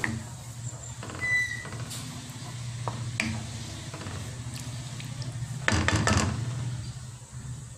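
Wooden spatula stirring coconut milk in a metal wok, scraping and tapping against the pan, with a cluster of louder knocks about six seconds in, over a steady low hum.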